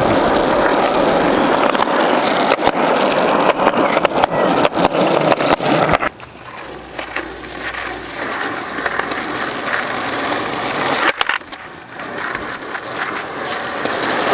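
A loud, steady rushing noise for about the first six seconds. Then skateboard wheels rolling on a concrete street, with sharp clacks of the board, getting louder toward the end as the rider comes close.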